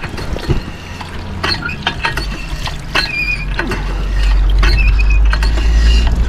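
Footsteps on a trail while walking downhill, heard as scattered clicks and crunches, with short high chirps over them. A low rumble on the microphone builds about two seconds in and is loudest from about four seconds in.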